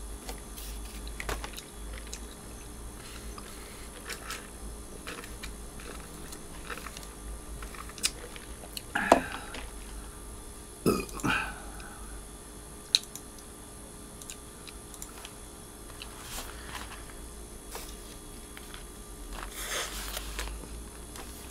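Eating sounds: chewing and small mouth clicks, with two louder mouth sounds about nine and eleven seconds in. Near the end comes a bite into a burger with its wrapper.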